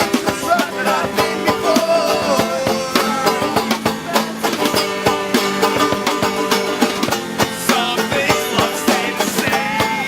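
Instrumental passage of an acoustic song: fast, even strumming on acoustic string instruments, with a plucked melody line over it.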